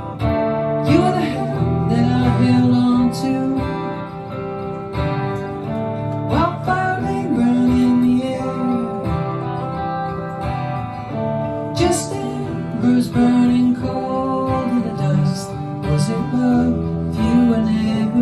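Instrumental break in a live folk song: guitars playing, with held lead notes that bend up and down in pitch over strummed chords.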